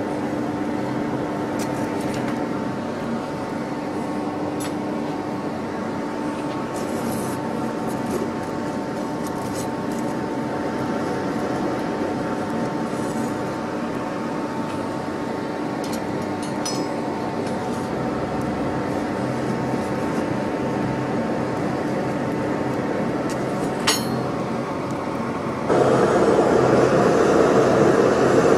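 Electric air blower of a blacksmith's coal forge running with a steady hum and rush of air, with a few faint tool clinks. A sharp click a little before the end, then the air noise becomes abruptly louder.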